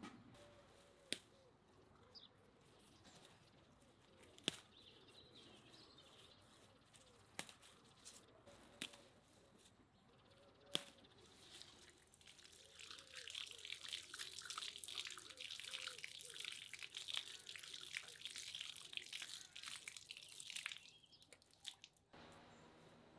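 Faint bird chirps and a few sharp clicks, then, about halfway through, water running from an outdoor tap and splashing onto concrete as a bunch of greens is rinsed in the stream. The splashing is the loudest sound and stops abruptly about two seconds before the end.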